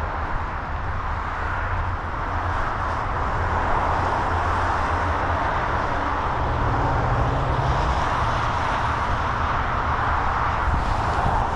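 Steady road traffic noise: cars passing, a continuous tyre hiss over a low rumble, growing a little louder about four seconds in.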